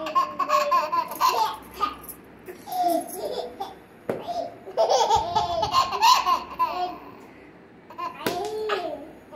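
A toddler boy laughing in repeated bouts, with babble between them and short lulls.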